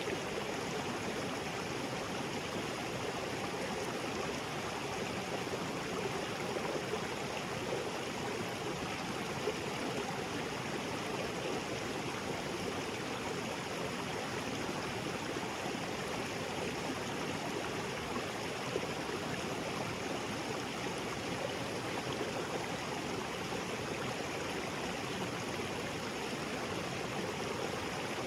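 Small waterfall splashing into a rocky jungle creek, a steady, even rush of falling and flowing water.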